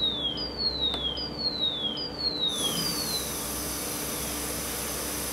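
Underwater speaker in a water tank playing repeating downward-sweeping chirps, just under one a second. About two and a half seconds in, air starts blowing through the aeration hoses with a steady rushing hiss of bubbles, and the chirps fade away as the bubble cloud attenuates the sound.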